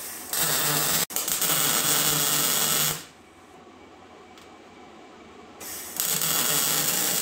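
Wire-feed welder laying stitch welds to join a new 11-gauge steel plate to a truck frame. There is a burst of about two and a half seconds with a brief break about a second in, then a second burst starting near the end.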